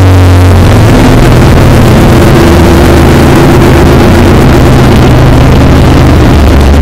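Harsh noise music: a very loud, saturated wall of distorted noise over steady low droning tones, engine-like in character, with no let-up.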